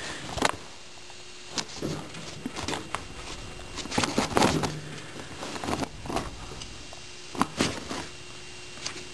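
Gloved hands working over a snowblower tire fitted with steel chains: scattered rustling, rubbing and scraping, with the chain links clinking now and then.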